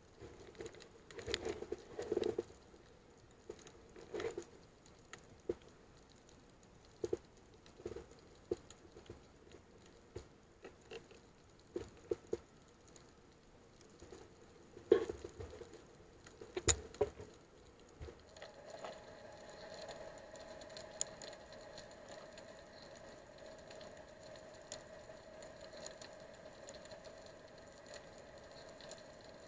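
Scattered knocks and clicks of handling, the loudest about fifteen seconds in. Then, a little past halfway, a small motor starts and runs with a steady whine.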